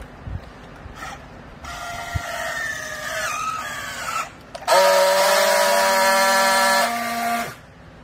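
A used-clothing baling machine's hydraulic drive whining under load. A pitched whine slides slowly down over about two and a half seconds, then after a short break a louder, steady whine with many overtones holds for about three seconds and cuts off suddenly.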